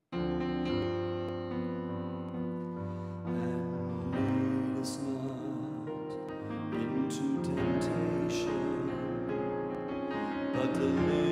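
Slow keyboard music of held piano-like chords, starting suddenly and changing chord every few seconds.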